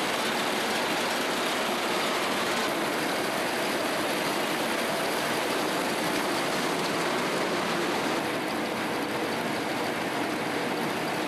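Wuzheng wheat combine harvester running: a steady, even machine noise that holds at one level with no change in pace.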